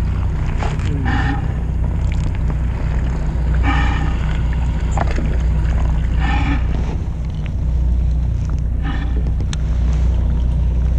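Fishing boat's engine running with a steady low hum. Over it, a short pitched tone repeats about every two and a half seconds, with a few light clicks.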